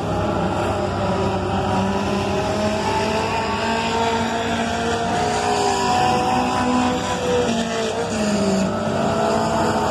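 Pure Stock dirt-track race cars lapping the oval, engines running loud and steady, with several engine notes overlapping and rising and falling as the cars speed up and ease off around the turns.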